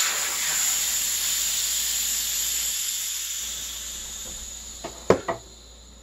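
Air hissing out of a freshly seated tubeless mountain-bike tyre through its open, coreless valve once the Airshot inflator hose is pulled off. The hiss starts strong and fades slowly as the tyre empties, and the bead stays seated. A few clicks and knocks come about five seconds in.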